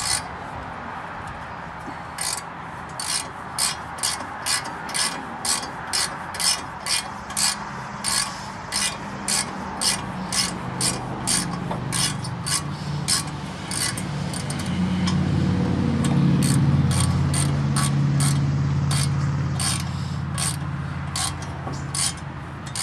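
Socket ratchet clicking in steady strokes, about two clicks a second, as it tightens exhaust manifold bolts on a small-block Chevy V8 by feel. A low drone swells in the background through the second half.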